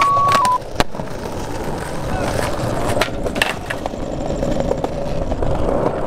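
A brief electronic test-tone beep that steps slightly down in pitch and cuts off after about half a second. Then skateboard wheels roll steadily over stone paving, with a few sharp clacks from the board about a second in and around three seconds in.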